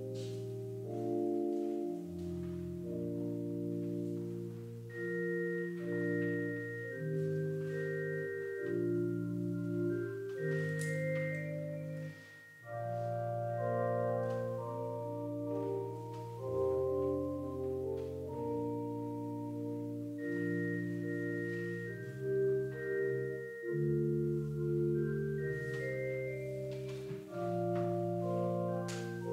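Slow instrumental music: held chords in the low and middle range, with a higher melody line above, each note sustained at an even level and changing every second or so.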